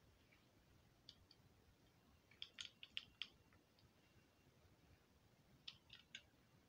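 Near silence: room tone with a few faint, short clicks, one about a second in, a quick cluster around the middle and a few more near the end.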